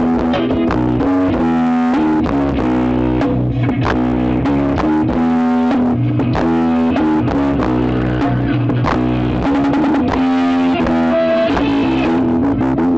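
Loud forró music with plucked guitar and heavy bass, played through a car's paredão speaker-wall sound system.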